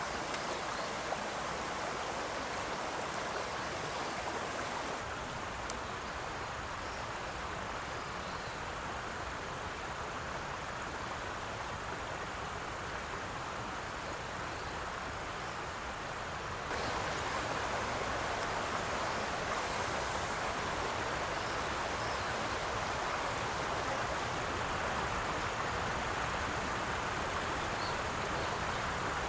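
Shallow river running over rocks: a steady rushing of water, a step louder a little past halfway.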